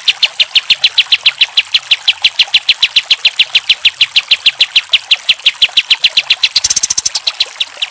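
Kapas tembak (olive-winged bulbul) singing a fast, even rapid-fire series of repeated short notes, about seven a second. Near the end it switches to a brief run of higher, quicker notes, then a few spaced notes.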